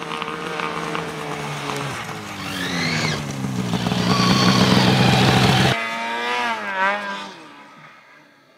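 Snowmobile engines revving as the sleds climb through deep powder, the pitch rising and falling with the throttle. One sled passes close by, loudest about four to five seconds in; the sound then cuts off suddenly and a more distant sled revs and fades away.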